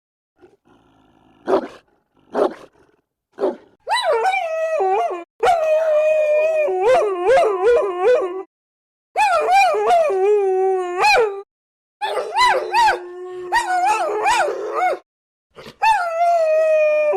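Dogs howling and whining in long wavering wails, two voices overlapping at times, after three short barks in the first few seconds.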